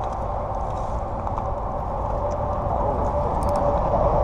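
Spinning reel's drag buzzing steadily as a hooked carp strips line off against it, while the reel handle is being cranked.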